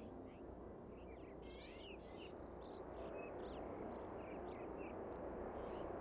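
Faint chirping of small birds, many short quick notes scattered throughout, over a low steady background rumble.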